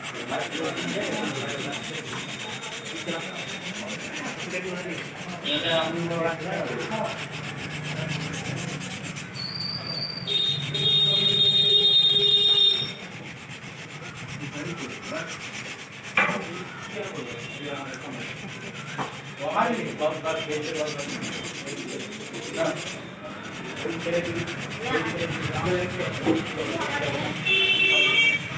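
Sandpaper rubbed by hand back and forth over a motorcycle headlight lens, a steady scratchy rasp as the scratches are sanded out. About ten seconds in, a louder high pitched tone sounds over it for about two seconds.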